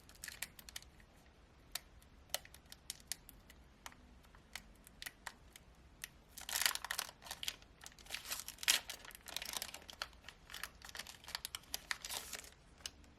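Pokémon booster pack's foil wrapper being handled and torn open: scattered small clicks and crackles at first, then several stretches of crinkling from about six seconds in.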